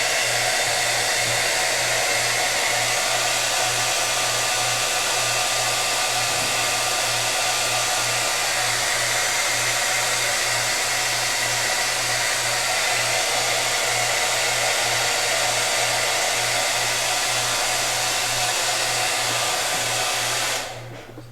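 Hair dryer running steadily on low, heating a rubber Talon grip wrap so that its adhesive bonds to the pistol's grip. It cuts off near the end.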